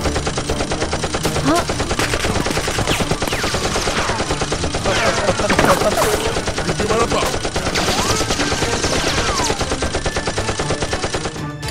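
Dubbed-in automatic gunfire sound effect: a continuous, very rapid stream of machine-gun shots laid over Nerf blaster footage. A few gliding tones sound over the shots. The firing starts abruptly and cuts off abruptly near the end.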